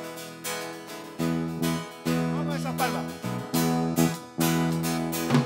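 Acoustic guitar strummed in a steady, lively rhythm, with electric bass underneath: the instrumental opening of a praise song.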